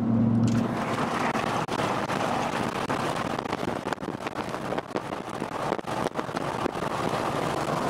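Vehicle moving at highway speed: a steady engine hum in the cab fades about half a second in, then wind rushes and buffets on the microphone along with road noise.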